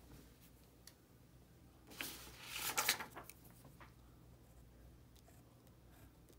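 BIC Round Stic ballpoint pen and hand moving on paper: a brief scratchy rustle about two seconds in, then faint pen strokes over a low steady hum.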